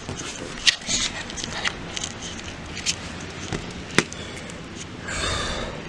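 Hurricane wind and rain noise, with scattered sharp clicks and knocks, the sharpest about four seconds in, and a brief louder rush near the end.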